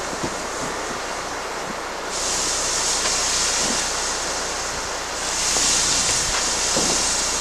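A 50-50 coolant-and-water mix hissing as it boils off a red-hot exhaust manifold, the hiss swelling louder about two seconds in and again about five seconds in.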